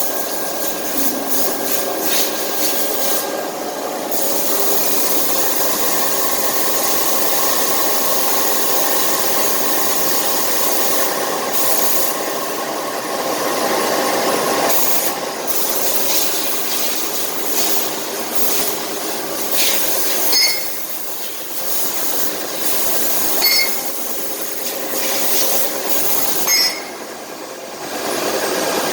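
A CNC milling machine's 160 mm face-milling cutter cutting medium-carbon 45C steel: a loud, dense, continuous cutting noise with a ringing tone. It dips briefly three times near the end, each dip starting with a short high chirp.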